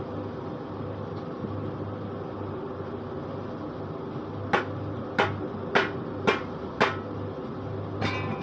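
Paving block press machine running with a steady hum, with five sharp metal knocks about half a second apart just past the middle and a softer, ringing clank near the end.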